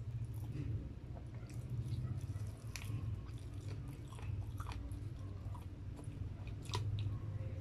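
Close-miked chewing of crispy fried chicken, with sharp crunches and crackles a few times, over a steady low hum.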